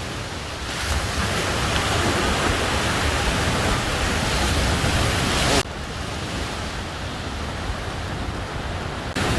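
Sea waves washing on the shore with wind buffeting the microphone, a steady rushing noise that drops suddenly to a quieter level a little past halfway.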